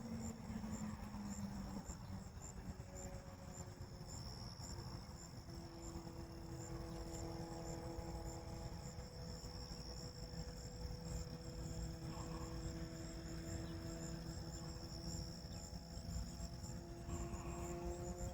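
Crickets chirping in a steady run of regular high pulses, alongside a continuous high insect trill. A faint low hum that slowly shifts in pitch runs beneath them.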